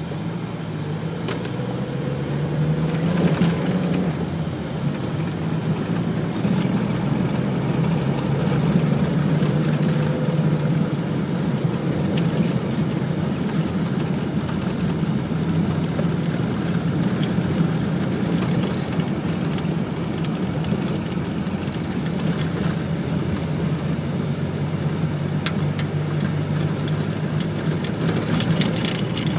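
Car engine running and tyre noise on the road, heard from inside the cabin while driving. The sound grows louder over the first few seconds as the car picks up speed, then holds steady as a low hum.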